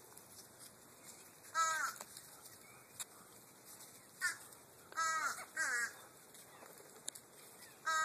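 Short, harsh bird calls, each falling in pitch, coming singly and in pairs about half a second apart, in several bouts.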